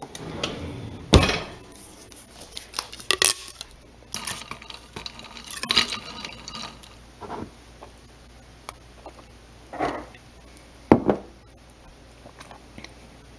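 Kitchen utensils and glassware clinking and knocking, a string of short separate knocks with the loudest about a second in, as a utensil drawer is rummaged and things are handled on the counter.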